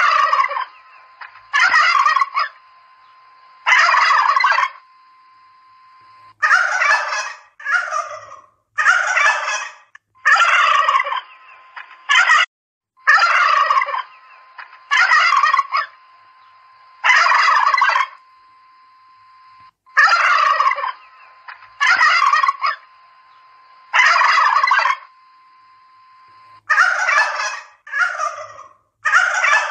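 Domestic turkeys gobbling over and over, a short rattling gobble every one to two seconds. A faint steady tone hums in the gaps between the calls.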